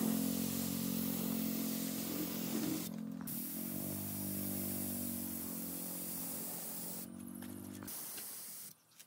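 Gravity-feed spray gun hissing as it sprays wood finish, over a steady low mechanical hum that stops near the end.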